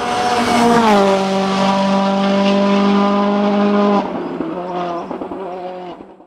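Racing car engine held at high revs with a steady note that dips slightly in pitch about a second in. It gets quieter about four seconds in and dies out near the end.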